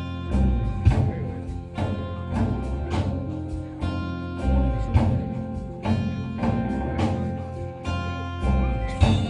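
Live band playing an instrumental passage of a Sufi song: drum strikes about once a second over sustained chords.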